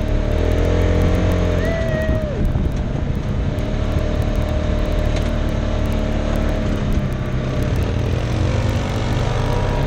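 A side-by-side UTV's engine runs steadily as it is driven along a dirt track. Its pitch climbs and drops back about two seconds in, then swells again near the end as the throttle changes.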